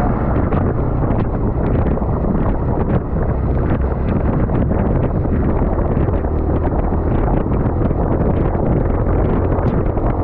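Wind rushing over the microphone of a moving motorcycle, with engine and road noise underneath, steady and loud.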